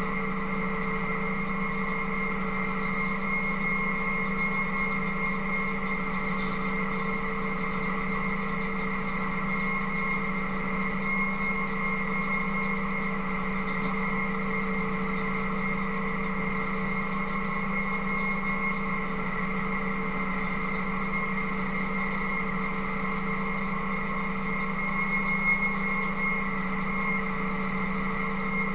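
Buffalo 7700 bale feeder running steadily as it unrolls and shreds a round bale, a constant mechanical drone with a steady whine and no change in speed.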